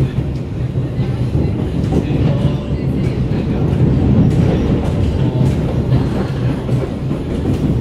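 Running noise inside a moving Kawasaki C151 metro train car fitted with permanent magnet synchronous traction motors: a steady low rumble of wheels on rail, with faint clicks, swelling slightly midway.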